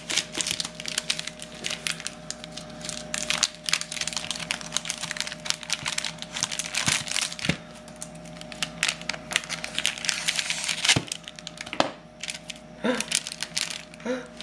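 Plastic cookie-dough wrapper being cut with scissors, then crinkled and peeled open by hand: a dense, irregular run of crackles and snaps.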